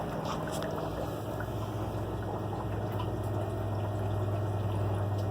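Aquarium equipment running: a steady low electric hum of pumps under water bubbling and trickling.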